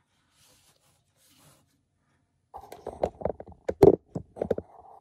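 Plastic RC car chassis, with its rear differential and suspension arms fitted, being handled and set down on a cutting mat: a quick run of light plastic knocks and clicks starting about halfway through, with one louder knock among them.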